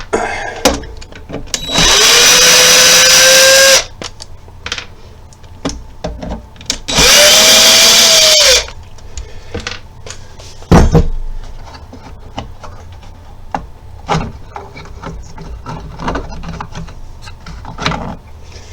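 A power drill runs twice in short bursts of about two seconds, its motor pitch climbing as it spins up, typical of driving or backing out screws. Between and after the runs come scattered clicks and knocks of parts being handled, with one sharp loud knock about eleven seconds in.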